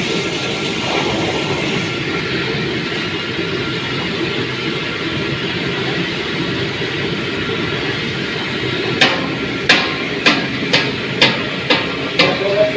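Steady hiss of fish frying in oil. From about three-quarters of the way in, a run of sharp taps comes roughly twice a second, a utensil knocking against the pan.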